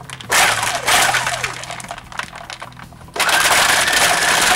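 Electric countertop blender pulsed twice, its motor winding down with a falling pitch after each burst, then switched on to run steadily from about three seconds in, blending ice, milk, yogurt and bananas into a smoothie.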